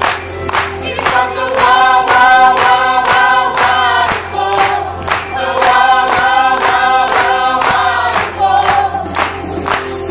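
Loud live band music with a steady beat, and many voices singing a sustained melody in two long phrases over it, like a crowd singing along.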